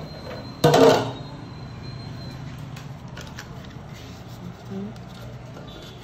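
Hand rubbing margarine around the inside of a metal cake pan, with one short loud clatter of the pan about a second in, then faint light knocks as baking paper is pressed into the bottom.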